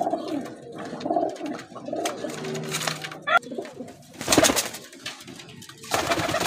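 Domestic pigeons cooing, a low call about midway, with short bursts of rustling and wing-flapping, the last one near the end as a released pigeon takes off.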